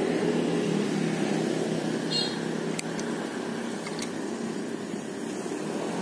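A motor vehicle's engine running close by on the road, a steady hum that eases off in the middle and builds again near the end. Two light clicks come about three and four seconds in.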